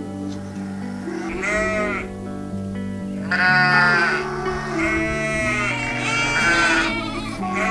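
Sheep bleating, about five wavering calls one after another, some overlapping, while lambs are being marked. Background music plays under them.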